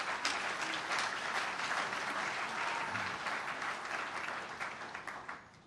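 Audience applauding in a large hall, many hands clapping at once; the clapping builds up, holds steady and dies away shortly before the end.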